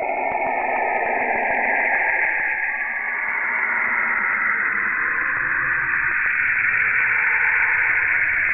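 Saturn's radio emissions, spacecraft radio recordings converted into audio: a dense, eerie hiss held in bands that slowly shift in pitch. The upper band grows stronger about halfway through.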